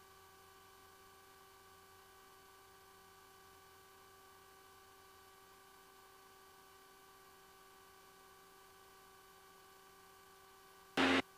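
Faint steady electrical hum made of several steady tones, broken near the end by one short, loud burst of noise.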